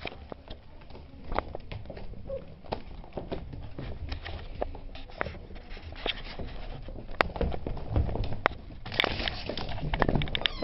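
Irregular clicks, scuffs and knocks over a low rumble: handling noise from a camera being moved about, with a couple of sharper knocks about seven and nine seconds in.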